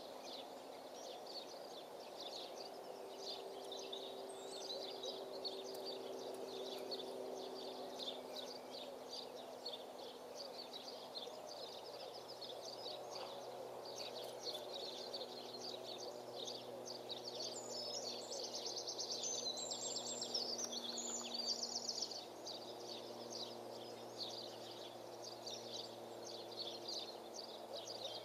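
Small songbirds chirping and singing around the arena, with a denser, higher run of song a little past the middle, over a faint steady low hum.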